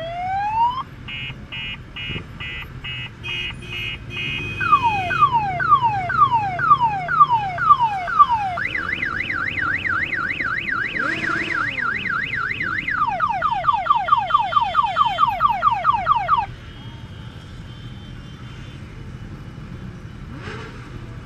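Electronic multi-tone siren cycling through its patterns: rising wails, a run of short beeps, slow falling sweeps, a fast up-and-down warble, then rapid falling sweeps, before cutting off suddenly about sixteen seconds in. Motorcycle engines run low underneath.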